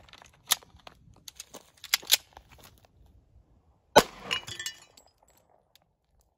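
A sharp crack about four seconds in, with a short metallic ring dying away after it: a handgun shot striking a cast iron skillet hung as a target. Several lighter clicks and clinks come before it.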